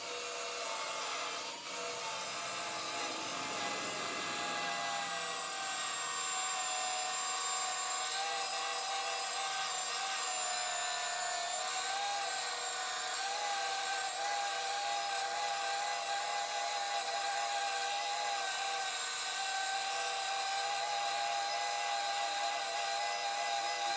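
Milwaukee M12 Fuel cordless cut-off tool converted into a Baxter half-inch belt sander, running continuously with a steady high whine and the rasp of a 60-grit belt grinding down a weld. The pitch sags a little in places as it is pressed into the work.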